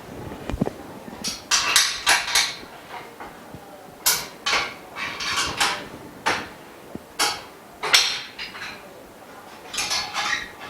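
Frame bars of a dust-free room knocking and clanking against each other during assembly: about a dozen irregular sharp knocks, some ringing briefly.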